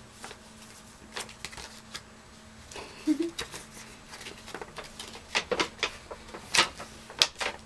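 Paper and envelope rustling and crackling as a letter's contents are handled and unfolded, with a run of sharper crackles in the last few seconds.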